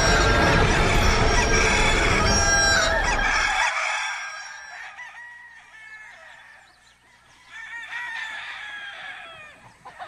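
A large flock of roosters, about a hundred, crowing and clucking all at once in a dense, overlapping din. About four seconds in it drops off sharply and fades to fainter, scattered crows.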